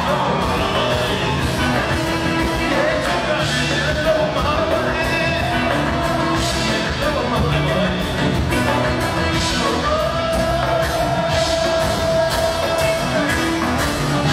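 Live Ethiopian pop band playing with a steady beat on drum kit, electric guitar, bass and keyboard, with a male lead vocal holding long notes over it.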